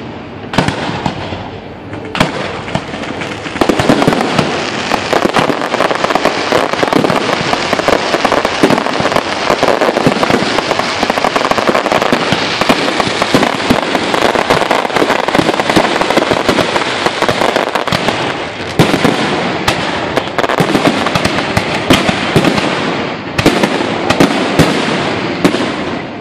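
Aerial fireworks display: shells bursting with bangs and dense crackling. The crackle thickens into a near-continuous roar of pops from a few seconds in, and gives way to separate sharp bangs in the last third.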